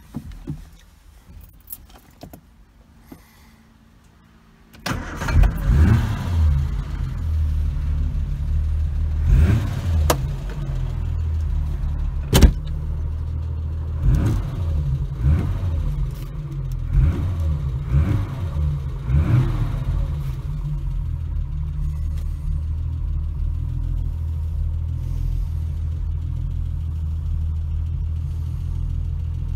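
1971 Triumph GT6 Mk3's two-litre straight-six starting about five seconds in, after a few clicks, heard from inside the cabin. It is blipped several times in short rises and falls of revs, then settles to a steady idle.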